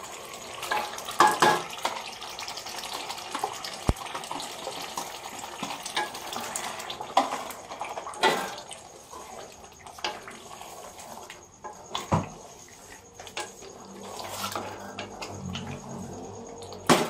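A wooden spatula stirring and scraping mutton and spinach in a metal pot, knocking irregularly against the pot, over a steady sizzle of the frying mixture.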